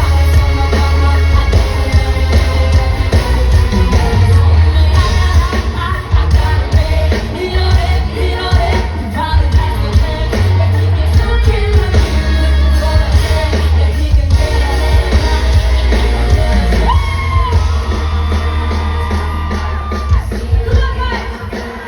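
Live pop song played loud through a concert sound system: a heavy, steady bass line under sung vocals, with shouts now and then.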